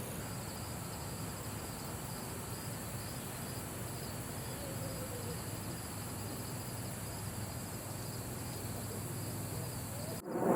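Outdoor ambience with a steady high insect trill and a faint hooting bird call.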